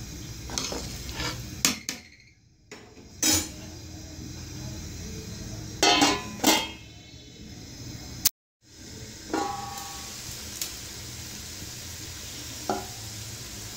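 A metal spoon stirs vegetables in a large aluminium pot of boiling water, clinking a few times against the pot, over a steady hiss. About six seconds in, the aluminium lid clanks twice as it is set on the pot. A few single knocks follow.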